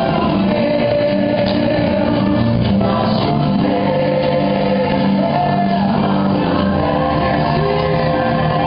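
Loud Christian gospel worship music with singing, over a steady bass.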